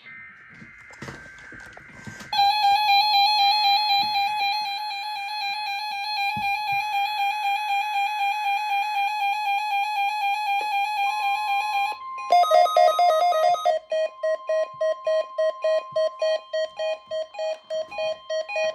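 Weather radio emergency alert test signal: short warbling digital data bursts of the alert header, then a buzzy, rapidly pulsing electronic alarm. About eleven seconds in, the steady 1050 Hz warning alarm tone joins. Soon after, the pulsing drops lower in pitch and beeps about twice a second.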